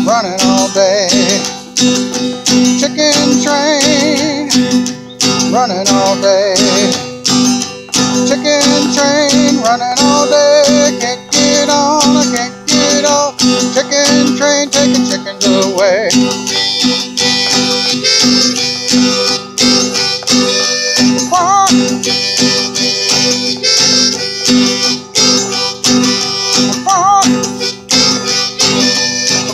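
Instrumental music: an acoustic guitar strummed in a steady driving rhythm under a harmonica lead whose notes waver and bend.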